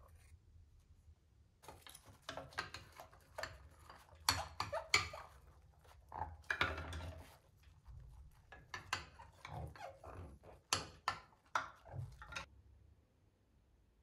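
Painting utensils being washed by hand in a sink of soapy water: irregular splashing and sloshing with sharp clatters of the tools against the basin, stopping shortly before the end.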